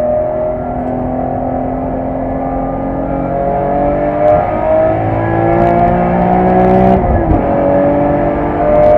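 BMW E46 M3's S54 straight-six heard from inside the cabin, accelerating with its pitch climbing steadily through a gear, then an upshift about seven seconds in drops the pitch before it climbs again.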